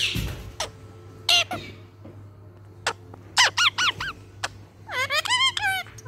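Indian ringneck parakeet giving short, high squeaky calls: a few sharp single chirps, then a quick run of rising-and-falling squeaks about three and a half seconds in and a longer run near the end.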